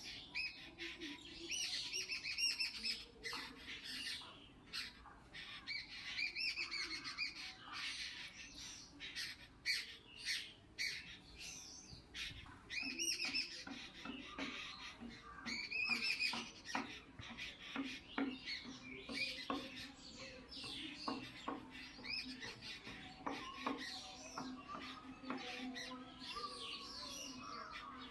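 Birds calling and squawking: repeated short, arching chirps in bursts, mixed with many sharp clicks.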